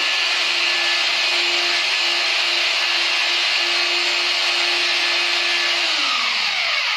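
Electric hammer drill boring into a ceramic-tiled wall, its motor running at a steady whine. About six seconds in, the trigger is released and the motor spins down.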